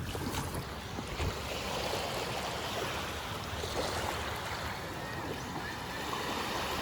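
Steady rush of wind and sea water.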